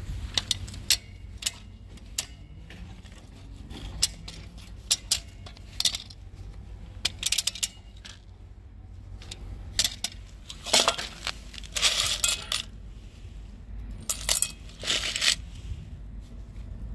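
Screws and small steel parts clinking and rattling in a steel bowl as they are handled: a string of sharp metallic clinks, with two longer rattles in the second half.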